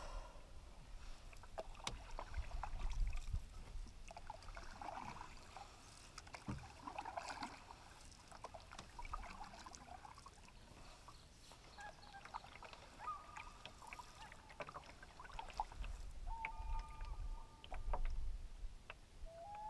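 Canoe paddle strokes, with water splashing and dripping off the blade. From about twelve seconds in, common loons call in the distance: several drawn-out, steady notes.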